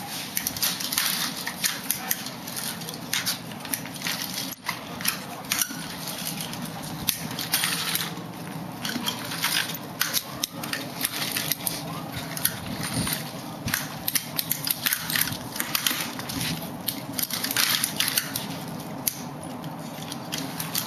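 A front-wheeled walker with tennis-ball glides being pushed along concrete, with shuffling footsteps: an irregular, steady run of scrapes, clicks and knocks.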